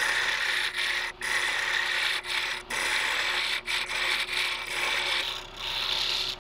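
Wood lathe spinning a small wooden blank while a hand-held chisel cuts along it: a steady scraping hiss of the blade peeling off shavings, broken by short gaps every second or so as the tool eases off. A low steady hum runs underneath.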